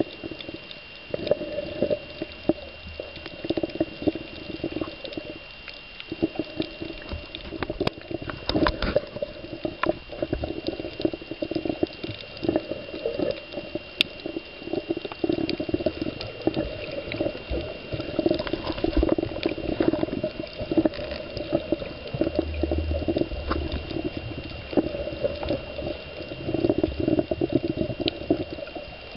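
Water sloshing and gurgling around a snorkeler's camera, coming in uneven surges, with many short sharp clicks and a steady thin high tone underneath.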